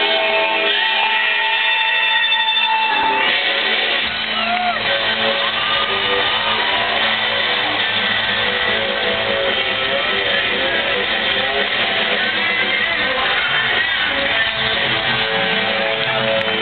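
Live rock band playing with loud electric guitar through a stadium PA. A chord is held for about three seconds, then the full band plays on.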